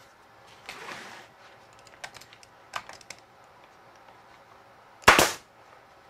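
Pneumatic stapler firing once with a loud, sharp shot about five seconds in, driving a staple through a pine cross piece into the frame. Before it, a few light knocks and a brief rustle as the wood is set in place.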